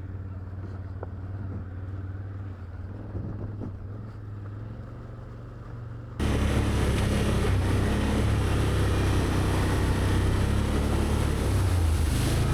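ATV engine running at low speed in low gear over rocky ground. About six seconds in, the sound abruptly becomes much louder, with a dense rushing noise over the engine.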